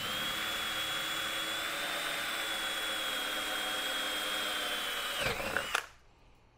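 Cordless drill boring a hole through a kayak's plastic hull: a steady motor whine that dips briefly near the end and stops after about six seconds.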